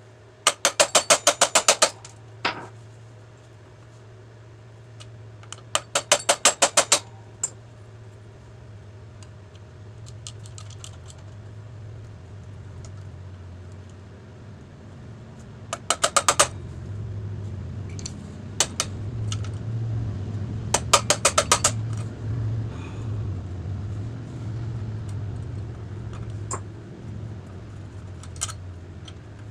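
Hand tools on metal motorcycle parts: four short bursts of rapid metallic clicking, about ten clicks a second, with a few single ticks between them, over a steady low hum.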